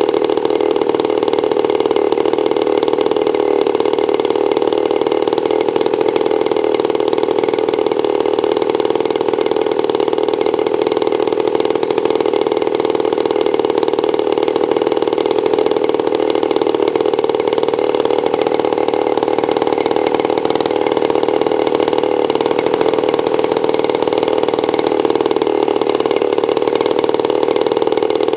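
RCGF 60cc rear-exhaust single-cylinder two-stroke gasoline engine running steadily on a test stand, spinning its propeller at an even speed.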